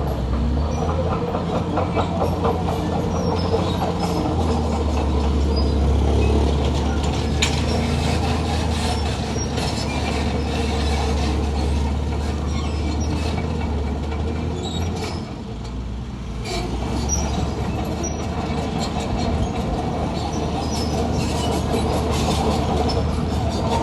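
Crawler bulldozer's diesel engine running steadily as it works, with its steel tracks clanking and squealing; the engine eases off briefly about two-thirds of the way through.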